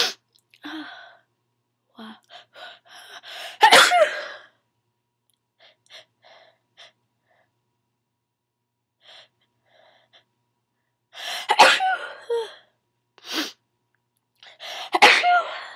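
A person's repeated sneezing in a sneezing fit. One loud sneeze comes about four seconds in, then a run of sneezes in the last five seconds, with short breaths in between them.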